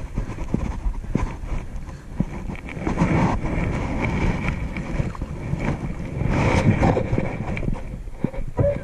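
Wind buffeting the microphone in gusts, loudest about three seconds in and again around six to seven seconds in, with scattered small clicks.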